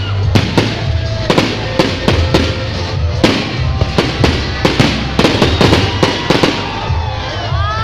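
Fireworks display: aerial shells bursting in a rapid, irregular string of bangs, about three a second, thinning out near the end. Music plays underneath with a low, steady beat.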